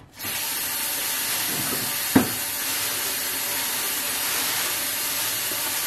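Steady, even hiss of water running from a kitchen tap, with one sharp click about two seconds in.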